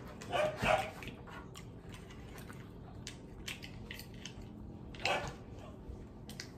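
A person biting into a slice of pizza and chewing it close to the microphone, with many small mouth clicks and smacks. Two brief louder sounds come about half a second in and about five seconds in.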